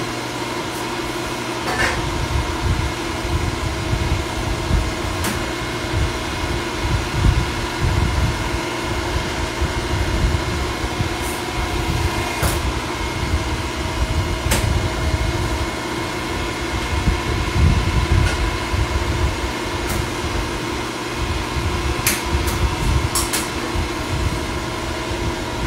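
Hydraulic exhaust pipe bender running as a length of steel exhaust tubing is bent: a steady machine hum with an uneven low rumble under it, and a few sharp metallic clicks.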